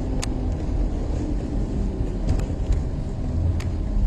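Steady low rumble of a car's engine and tyres, heard from inside the car while it drives, with a few light clicks.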